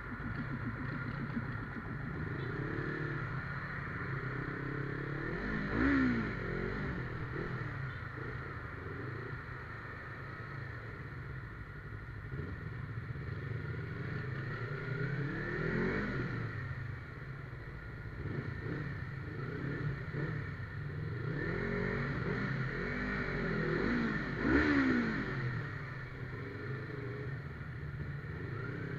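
Yamaha MT-25 motorcycle's parallel-twin engine running at low speed. Pitch rises and falls as the throttle is opened and eased off, with three stronger revs about a fifth of the way in, just past the middle, and near the end.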